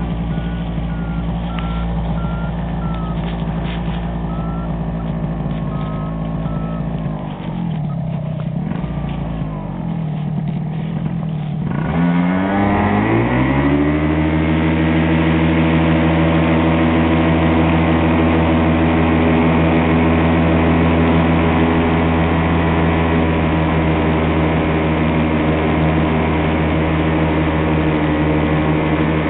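Miniplane Top 80 paramotor's two-stroke engine and propeller running. The pitch sags about seven seconds in, then climbs steeply from about twelve seconds as the throttle opens, and holds steady and louder at high power.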